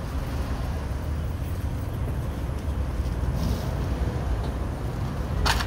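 Steady low rumble of car engines and street traffic, with a brief hiss about halfway and a single sharp click near the end.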